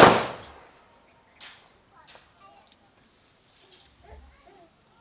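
A sharp, loud crack right at the start that dies away over about half a second, then soft occasional taps and clicks of boiled potatoes being peeled by hand and set into a wooden bowl. Faint bird calls and a steady high insect trill run underneath.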